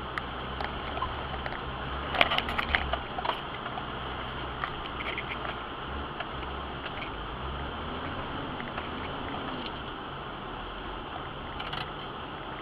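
4x4 running slowly along a rough, muddy forest track, heard from inside the cabin as a steady low engine and road rumble. There is a cluster of knocks and rattles about two seconds in, with a few lighter clicks later.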